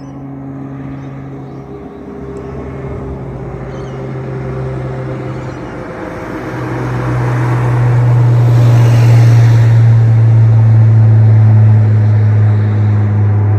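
Royal Flying Doctor Service Beechcraft King Air twin turboprop climbing out overhead after takeoff, its propellers making a steady low drone. The drone grows louder through the first half, deepens and strengthens about halfway, and is loudest in the second half.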